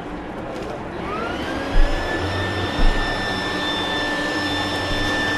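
Vacuum cleaner motor switched on about a second in, its whine rising and then holding at a steady pitch as it sucks foam packing peanuts out of a vehicle, with two dull low thumps shortly after it starts.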